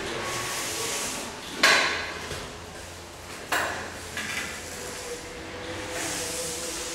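A bicycle clattering on a tiled floor: two sharp knocks about two seconds apart, the first the louder, over a faint hiss.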